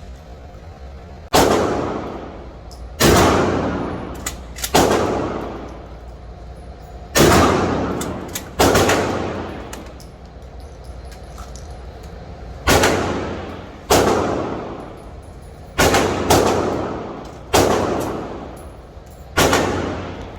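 Ten shotgun shots in uneven spacing, mostly one to two seconds apart with a longer gap near the middle. Each shot is a sharp bang with a tail that echoes for about a second, and there are faint clicks between some shots.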